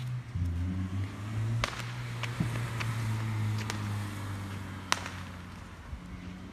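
Distant firecrackers going off: several sharp single pops scattered through, the strongest about five seconds in, over a steady low hum.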